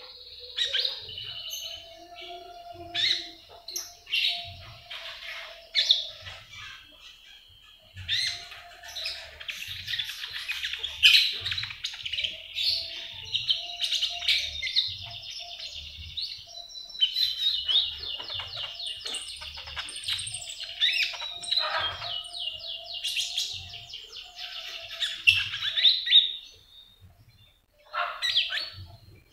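A caged konin songbird singing a long, varied run of high chirps and twitters, with rapid trills in the middle. It pauses briefly near the end. Faint soft thumps sound under the song.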